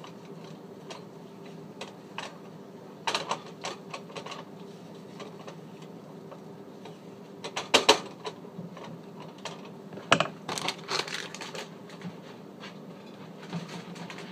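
A spatula tapping and scraping against a frying pan while an omelet is worked around, in scattered clusters of sharp clicks, the loudest about three times over. A faint steady hum runs underneath.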